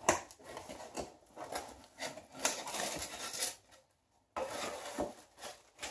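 Cardboard shipping box being opened by hand: flaps scraping and folding back, packing material rustling, with scattered light taps, in irregular spurts and a brief pause a little past the middle.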